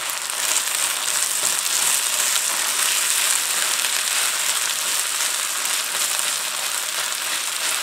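Rice, peas and carrots sizzling steadily in a hot wok with butter as the rice is stir-fried and broken up with a spatula.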